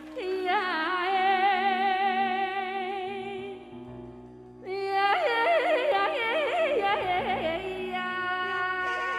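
A woman sings solo into a microphone in Malay style, with wide vibrato and quick ornamented turns, over a sustained backing chord. Her voice drops away for about a second near the middle, then comes back on a more heavily ornamented, wavering phrase.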